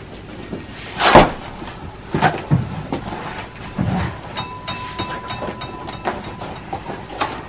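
Wrapping paper and a cardboard gift box being handled: irregular rustles and knocks, the loudest about a second in.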